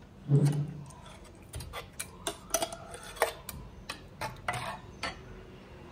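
Steel ladle knocking and scraping against a stainless-steel mixer-grinder jar as coarsely ground rice is scooped out into a clay pot. A run of irregular sharp taps and clicks, with a louder knock about half a second in.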